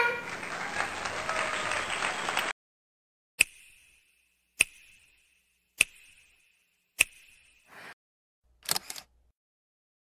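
A short burst of applause that cuts off abruptly, then four camera shutter clicks about 1.2 seconds apart, each with a brief ringing tail, and a quick double click near the end.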